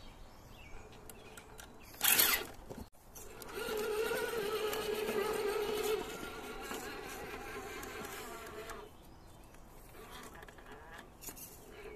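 Electric motor and drivetrain of an RC rock crawler whining steadily as it climbs, for about five seconds, easing after the first couple of seconds and stopping near the end. A brief loud noise comes about two seconds in, before the whine.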